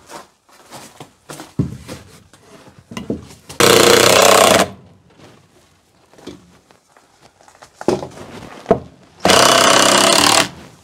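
Cordless driver driving screws into a wooden shelf brace in two runs of about a second each, the first about four seconds in and the second near the end. Light knocks of wood being handled between them.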